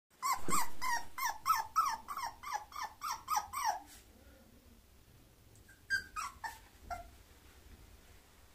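A bulloxer (bulldog–boxer mix) puppy whimpering in a quick string of short calls that drop in pitch, about three a second for some four seconds. After a pause of two seconds it gives a few more, higher whimpers.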